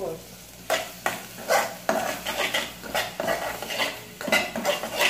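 Metal spoon scraping and clinking against an aluminium saucepan as onions are stirred, in quick irregular strokes starting about a second in.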